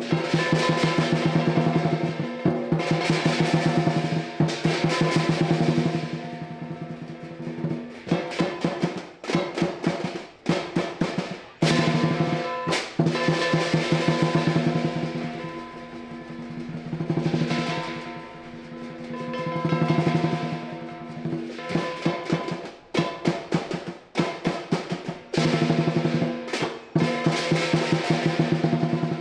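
Traditional southern lion dance percussion: the lion drum playing rapid strokes that build into loud rolls and drop back again several times, with cymbals and gong ringing underneath.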